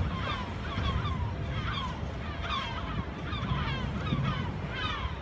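Many birds calling over and over in short, falling squawks, overlapping, over a steady low rumble of a water bus's engine and the water.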